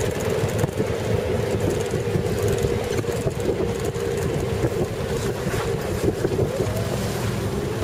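Safari vehicle's engine running steadily with a low rumble and an even drone as it drives on a dirt track, with wind buffeting the microphone.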